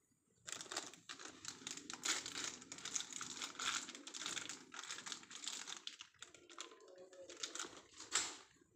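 Crinkling and rustling of something being handled, going on in irregular spells with short breaks, loudest just before the end.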